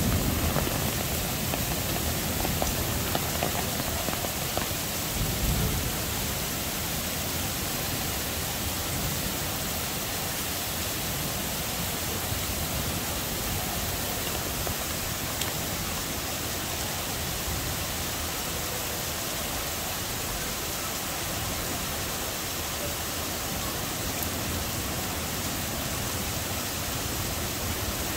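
Heavy rain pouring steadily in a thunderstorm. The tail of a thunderclap dies away at the start, and a brief low rumble comes about five seconds in.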